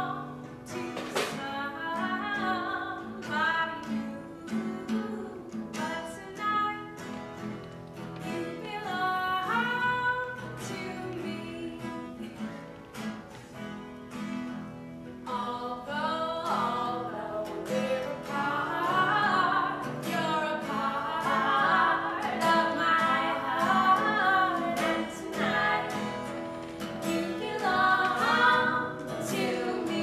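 A woman singing to an acoustic guitar accompaniment, with a short break in the singing about halfway through.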